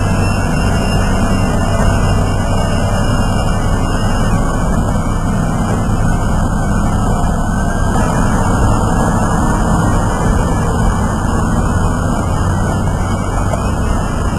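Heavy diesel engine of an excavator running steadily.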